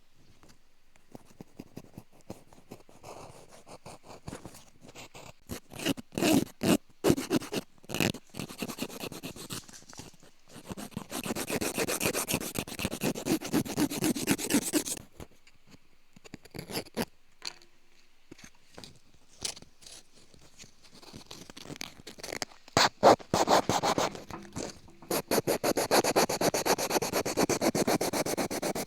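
Bamboo ear pick scraping and scratching against the ear, very close to the microphone, in bouts of rough scratching broken by sharp clicks; the densest scraping comes about 11 seconds in and again near the end, with a quieter stretch between.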